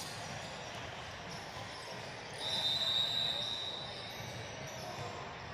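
Basketball game in a gym: a ball bouncing over a murmur of crowd noise, and a referee's whistle blowing one long, steady, high blast of about two seconds starting a little before halfway through.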